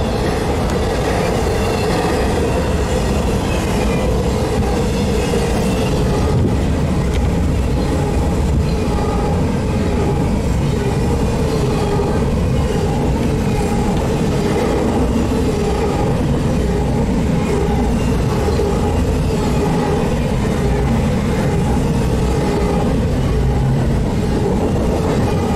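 Double-stack intermodal freight train rolling past close by, a steady loud rumble of wheels on rail with a steady humming tone over it, heard from inside a vehicle through the closed window.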